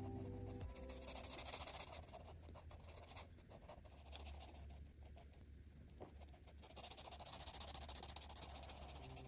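Ohuhu marker tip stroking across coloring-book paper: a soft, faint scratchy hiss of back-and-forth strokes, busiest in the first couple of seconds and again over the last few, quieter in between.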